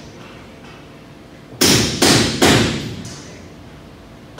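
Hammer striking metal: three blows in quick succession, each ringing briefly.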